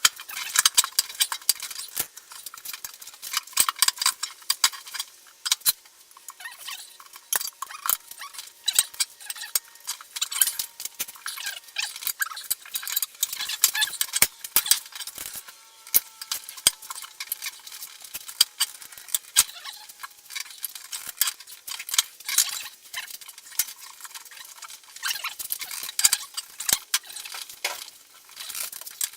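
Tyre-fitting tools clicking and scraping against a wheel rim, with rubber squeaks, as a motorcycle tyre bead is worked onto an alloy wheel. The sound is a steady run of irregular, sharp clicks and scrapes.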